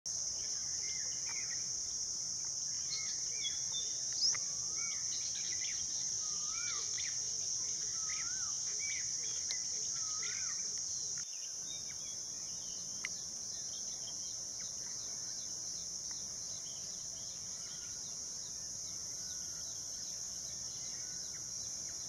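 A steady, high-pitched insect drone, with faint short wavering bird calls repeating about once a second over the first half and more faintly later on.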